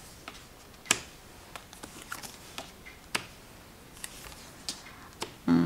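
Tarot cards being handled and laid out: scattered light clicks and taps, the sharpest about a second in and again about three seconds in. A short hum of voice starts at the very end.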